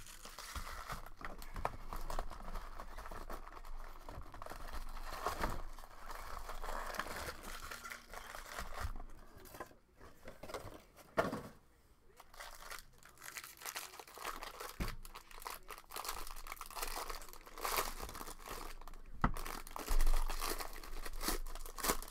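Foil trading-card pack wrappers crinkling and rustling in the hands, with one sharp knock about halfway through. Near the end comes the loudest stretch, a crackly tear as a foil pack is ripped open.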